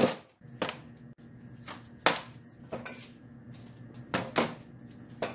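Metal outboard lower-unit gears and parts clinking and knocking together as they are handled, a series of sharp, irregular clinks.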